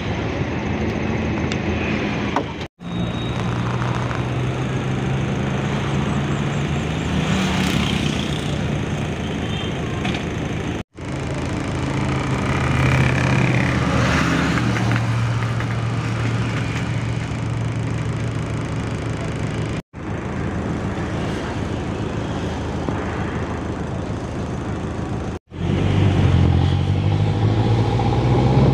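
Motor vehicle engines running at a roadside stop over outdoor background noise, broken by a few abrupt short dropouts. Near the end, the engine of a minibus on the move rises and falls in pitch as it drives.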